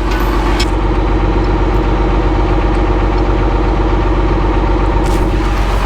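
Large John Deere loader's diesel engine running steadily.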